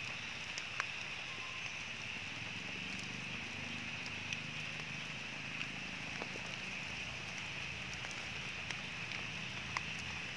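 Steady rain falling on leaves and ground, with a few sharp drips ticking close by.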